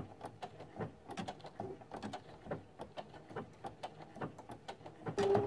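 Sewing machine stitching slowly on a blanket stitch, its needle mechanism making a quick run of light clicks. About five seconds in, a steady motor hum sets in as the machine speeds up.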